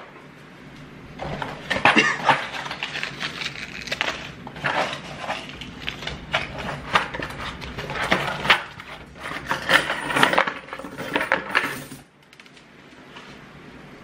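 Loose coins clattering and clinking out of a cardboard honor box as it is tipped and shaken over a table, mixed with knocks and rustling of the cardboard. The handling stops about two seconds before the end.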